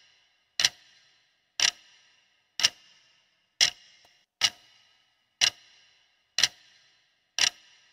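Clock-tick sound effect counting down a quiz answer timer: sharp ticks about once a second, eight in all, each with a brief ringing tail, marking the seconds left to answer.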